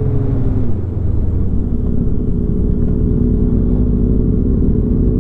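Superbike engine heard from the rider's seat while riding, over a heavy low rumble; its note eases down through the first second, dips briefly, then holds steady.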